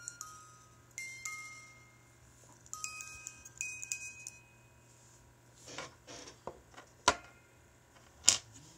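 Small old Japanese music box movement plucking a few slow, ringing notes from its steel comb, about one a second; the notes stop about halfway through. Fingers handling the brass case then make rustling and two sharp clicks near the end, the loudest sounds here.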